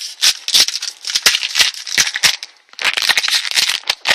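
Crinkly plastic-foil wrapper of a Pokémon TCG booster pack being handled and torn open close to the microphone: dense, irregular crackling and rustling, with a brief pause about two and a half seconds in.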